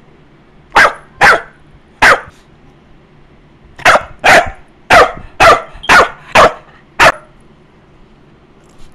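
Blue pit bull puppy barking loudly at close range: three sharp barks, a pause, then a quicker run of seven barks about two a second.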